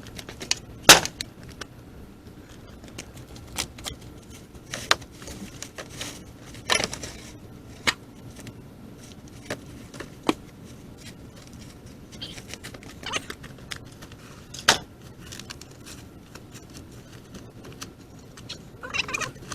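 Irregular knocks, clacks and light scrapes of boards and sheet-metal roofing panels being shifted by hand, with the loudest knock about a second in.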